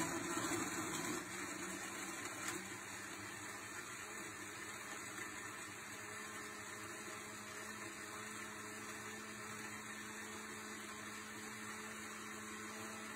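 Decen multifunction food processor's blender jug running, blending fruit, milk and ice into a smoothie. It is louder for about the first second, then settles into an even, steady hum.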